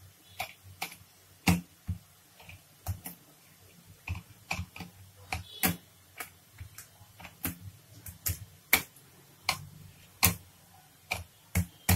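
Cashew nuts being snapped apart by hand over a steel plate: irregular sharp clicks, one or two a second, as the nuts crack and pieces drop onto the plate.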